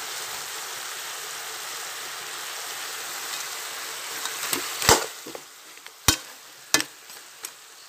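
Seasoned chicken pieces sizzling in an aluminium pot on the stove: a steady hiss that drops away a little past halfway. Then three sharp knocks follow, about a second apart.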